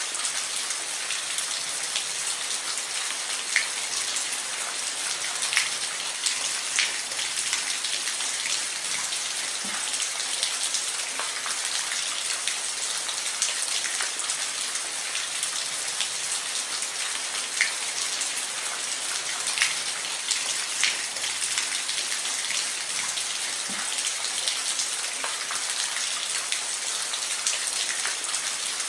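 Steady rain on a roof, an even hiss with scattered individual drops ticking.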